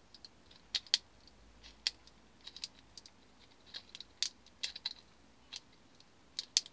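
Scissors snipping through a thin clear plastic sheet: a string of short, sharp, uneven snips as the edge of a bent plastic sleeve is trimmed.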